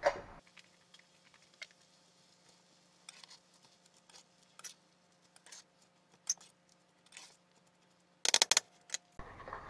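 Metal utensil scraping and clinking against a stainless steel pan as chopped cabbage and tomatoes are tossed. There are scattered soft scrapes and clicks, a cluster of louder clicks near the end, and a sharp knock at the very start.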